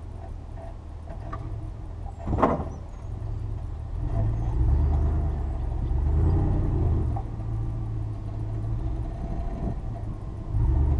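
Pulling vehicle's engine running under load, its low rumble rising and getting louder about four seconds in as it drags the swamped riding mower up the pond bank on a chain, then easing back. A short sharp noise about two seconds in.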